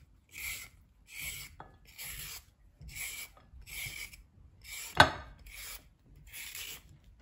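Vegetable peeler shaving ribbons off a raw carrot, about nine scraping strokes at an even pace of one every three-quarters of a second. A single sharp click about five seconds in is the loudest sound.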